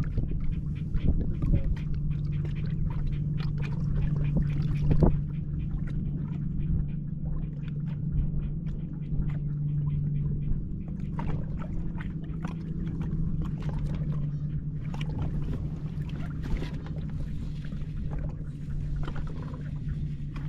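A boat motor humming steadily at low speed, with frequent small irregular knocks and splashes of water lapping against the hull.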